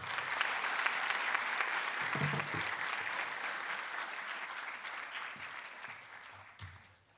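Audience applauding, the clapping slowly fading away over the last couple of seconds.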